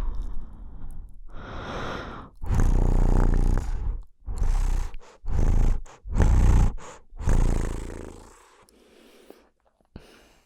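ASMR mouth and breath sounds right at the microphone: about six loud breathy puffs in a row, each with a heavy low rumble, then only faint small sounds near the end.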